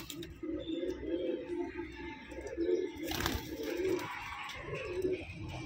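Domestic pigeons cooing: a run of low, repeated throaty coos, with a brief rustling burst about three seconds in.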